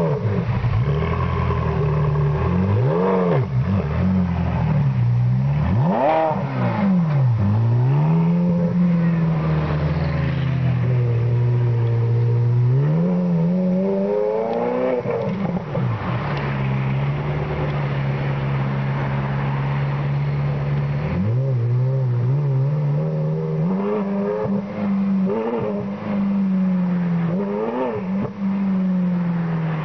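A vehicle engine revving up and down every few seconds, with stretches of steady running in between.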